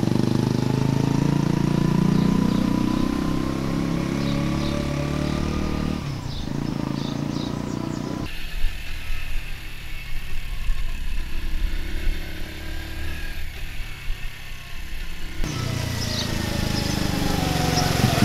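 Sinnis Bomber 125's air-cooled four-stroke single-cylinder engine running as the bike is ridden, its pitch rising and falling. For several seconds in the middle it is heard from a camera on the bike, duller and more uneven, then the bike is heard approaching again near the end.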